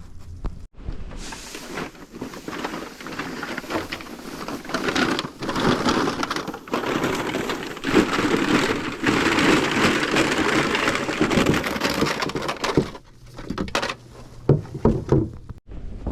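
Crushed aluminum cans clattering and rattling in a long continuous cascade as they are tipped out of a bucket into a bag. It tails off about 13 seconds in, leaving a few scattered clinks.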